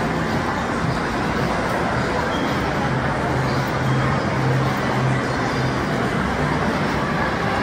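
Steady road traffic noise, with a low engine hum standing out for a couple of seconds in the middle.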